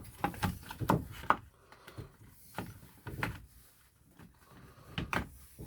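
Irregular small clicks and knocks as parts and tools are handled during work on a strimmer engine, with a louder pair of knocks about five seconds in.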